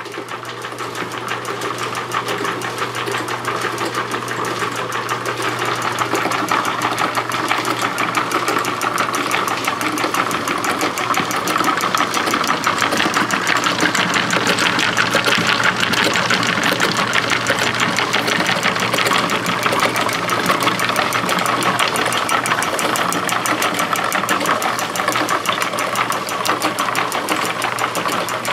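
Homemade fabric dye machine running: a small electric motor turns wooden pulleys by belt and drives meshing plywood gears, giving a steady, rapid clatter over a low hum.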